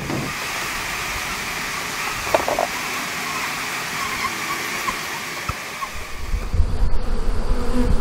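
A freshly hived swarm of honey bees buzzing around and over the hive box, a steady hum. A low rumble comes in about six seconds in and becomes the loudest part.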